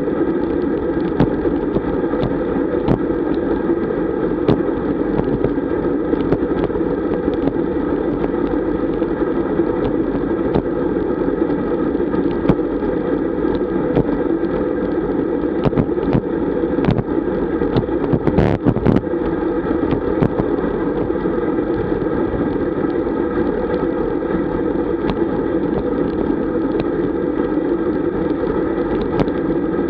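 Steady rush of wind and tyre noise picked up by a bike-mounted action camera on a road bike riding at about 38 km/h, with scattered clicks and knocks from the bike over the road and a short cluster of knocks a little past halfway.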